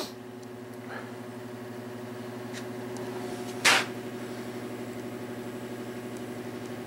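A steady low machine hum with an even, unchanging pitch, and a short burst of hiss about three and a half seconds in.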